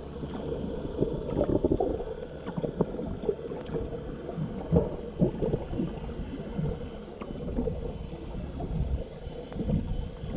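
Muffled underwater sound picked up by a camera below the surface: gurgling, sloshing water with scattered small pops and clicks over a steady hum.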